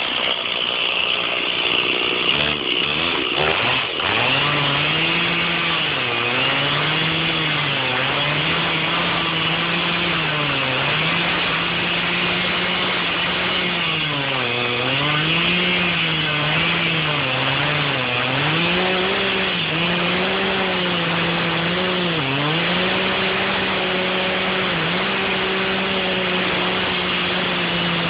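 Stihl chainsaw revving up about three seconds in, then running at high throttle while cutting oak, its pitch dipping and recovering again and again as the engine bogs under load in the cut.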